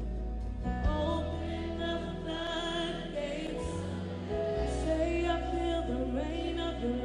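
Live gospel worship song: a woman sings the lead over sustained chords and a steady bass, her sung lines starting a little under a second in.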